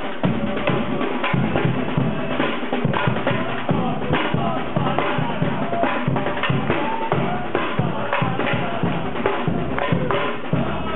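Samba percussion ensemble playing live: metal-shelled surdo bass drums and other drums beaten with sticks in a steady, dense rhythm.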